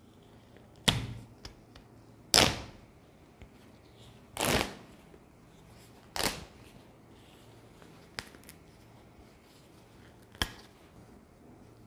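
Stitching being pulled out of a cotton kurti's collar seam by hand: about five short, sharp rips of thread and cloth, a second or two apart, with faint fabric rustling between them.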